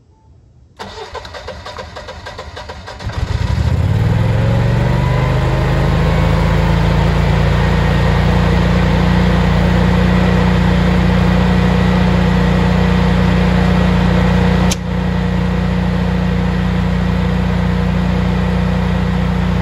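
Generac 22 kW air-cooled standby generator's twin-cylinder engine auto-starting after a utility power loss: the starter cranks for about two seconds, the engine catches and runs up to speed, then runs steadily. About fifteen seconds in there is a single sharp click and a slight drop in level as the transfer switch puts the house on generator power.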